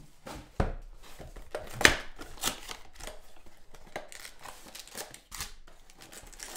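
Cardboard trading-card box (a 2019-20 NBA Hoops Premium Stock mega box) being torn open by hand and its foil packs pulled out: a run of sharp tearing, crackling and rustling noises, the loudest about two seconds in.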